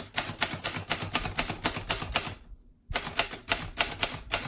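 Groma Kolibri ultraslim manual portable typewriter being typed on, its typebars striking the platen in a quick run of about six keystrokes a second while typing the figures row. The strikes break off for about half a second in the middle, then start again.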